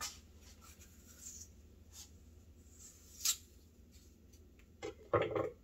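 Paring knife cutting and scraping the core, stem and seeds out of an apple: a few faint clicks and scrapes, then a short louder sound near the end.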